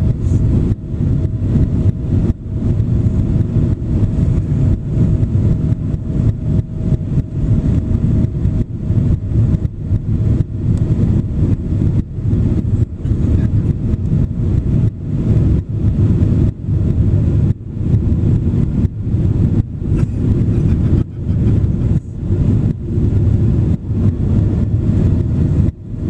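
Cabin noise inside a Boeing 767-400 in flight: a steady low roar of jet engines and airflow, with a faint steady tone that fades out about halfway through. The level dips briefly and constantly throughout.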